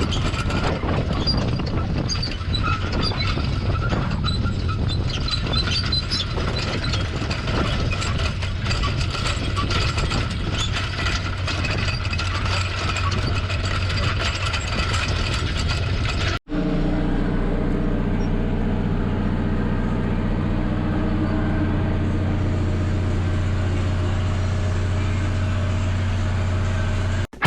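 Tractor engine running steadily under load while pulling a disc plough through rough, rocky ground, with many small knocks and rattles. About sixteen seconds in, the sound cuts off abruptly and resumes as a steadier engine drone with fewer knocks.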